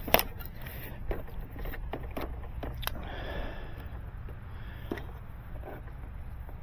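Fiber drop cable's outer jacket being slit with a drop-cable slitter: a sharp click just after the start, then scattered clicks and a short scraping rasp as the blade works along the casing.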